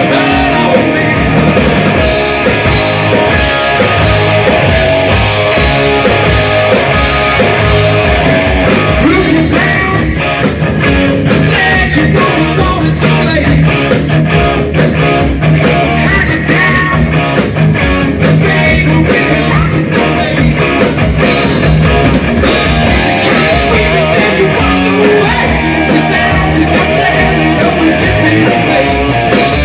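Live rock band playing: distorted electric guitars, bass guitar and a drum kit, with a male lead singer.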